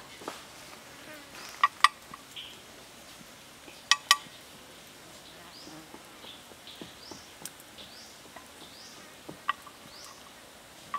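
Sharp clicks and taps, twice in quick pairs and later singly, over a faint high rising chirp that repeats about every three-quarters of a second from midway on.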